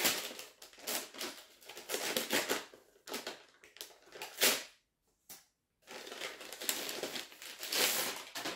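Brown kraft paper bag being opened and handled, its paper crinkling and rustling in irregular bursts, with a short pause about five seconds in.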